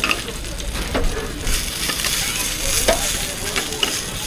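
Meat egg burgers frying in a hot pan: a steady sizzle, broken by a few sharp clicks about a second in and near three seconds.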